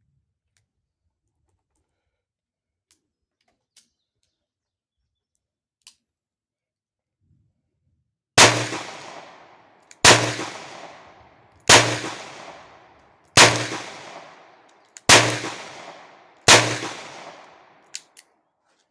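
Taurus 856 .38 Special revolver fired six times with 130-grain Remington rounds, about one shot every second and a half, each shot trailing off in an echo. The six shots empty its six-round cylinder.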